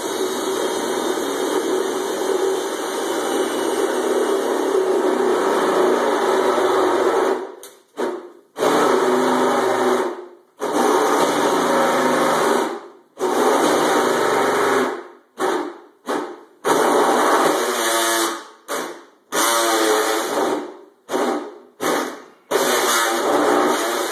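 Handheld power tool shaving down metal on the underside of a turbocharged Kawasaki ZX-14. It runs steadily for about seven seconds, then in a string of short start-stop bursts that get shorter toward the end.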